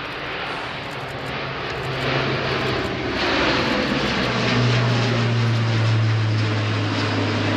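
Airbus A400M Atlas climbing out under the power of its four Europrop TP400 turboprops: a loud propeller drone over a broad roar that grows louder. Its low hum drops slightly in pitch about four seconds in as the aircraft passes overhead.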